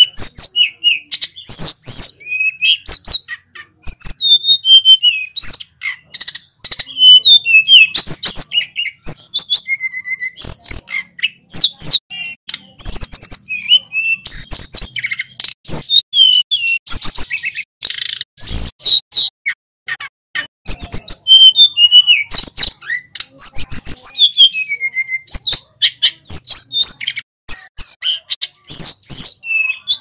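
Male hill blue flycatcher (sulingan gunung) singing a fast, varied run of high whistled phrases and warbles, with short breaks between phrases.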